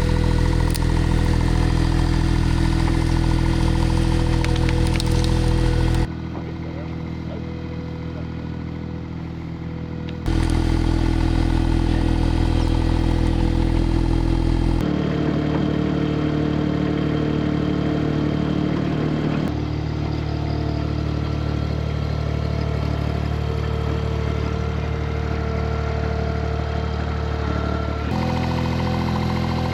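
Mini skid steer's engine running steadily. Its level and note jump abruptly several times.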